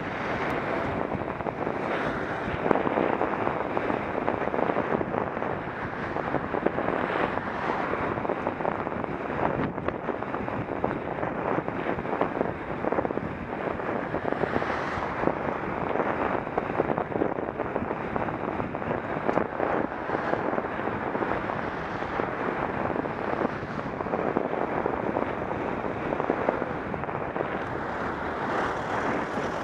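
Steady wind noise on the microphone of a camera moving along a road: an even rushing hiss with small fluctuations and no engine note standing out.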